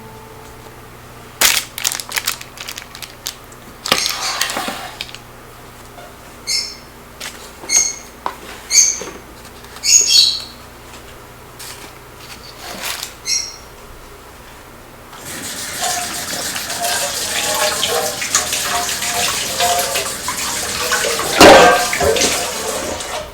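Scattered knocks and clicks with a few short high chirps, then, about two-thirds of the way in, water starts running steadily from a tap, with a louder splash or clatter near the end.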